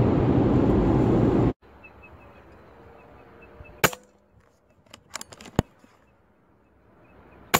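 Road noise inside a moving car's cabin cuts off after about a second and a half. Then comes a PCP air rifle: a sharp, quiet shot about four seconds in, a quick run of lighter clicks a second later, and a second sharp shot near the end.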